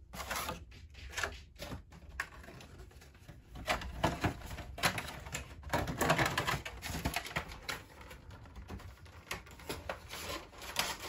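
Clear plastic box insert and foil booster packs being handled, with irregular rustling, crinkling and clicking of plastic, busiest in the middle.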